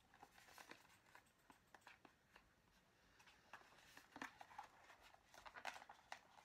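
Near silence, with faint rustling and small clicks of a jade roller's packaging being handled and opened, busier in the second half.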